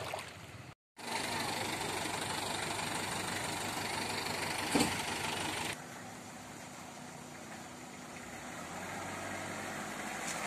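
Vehicle engine idling under a steady hiss, with a brief dropout about a second in and a single click near the middle.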